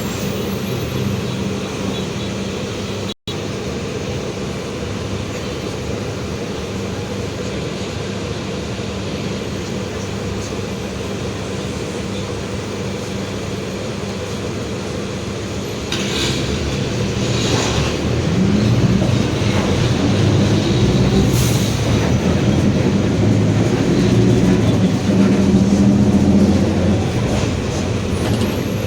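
Mercedes-Benz OF-1721 Bluetec 5 bus running under way: a steady diesel engine with the droning growl of its differential. About halfway through it grows louder and the engine note rises as the bus accelerates, with a few short hissing bursts.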